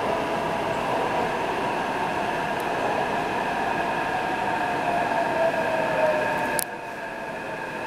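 Taipei Metro C381 train running through a tunnel, heard inside the car: steady running noise with the traction motors' whine in several pitches, one tone sliding slightly lower. Near the end a sharp click, and the noise suddenly drops.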